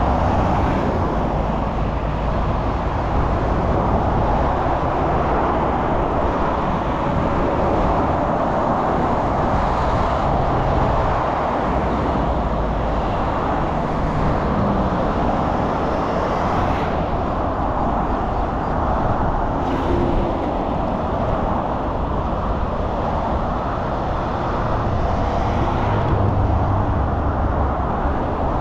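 Steady road traffic noise: a continuous hiss of vehicles and tyres over a low rumble, with no clear single event standing out.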